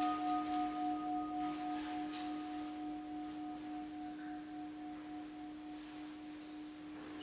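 Church altar bell struck during the Eucharistic Prayer at Mass, its few steady tones ringing on and slowly dying away. Faint jingling strokes sound in the first two seconds.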